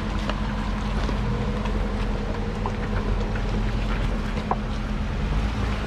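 Jeep Wrangler engine running steadily with a low, even hum as it crawls slowly over a rocky trail, with a few light clicks scattered through.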